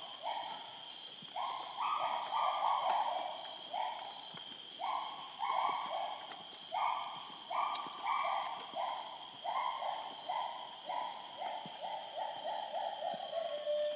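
North Bornean gibbon singing: short hooting notes in quick runs of two to five, the pitch slowly falling over the course of the song, over a steady high drone.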